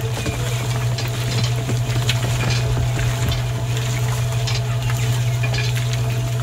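A small electric motor hums steadily as it drives a miniature shaking sieve. Grit and small pebbles scratch and tick on the wire mesh as a little scoop pushes them around.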